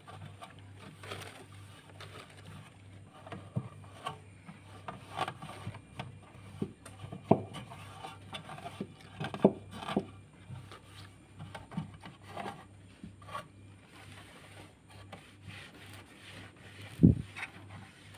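Rubbing and scraping on a hard surface with scattered light knocks, and one loud thump near the end.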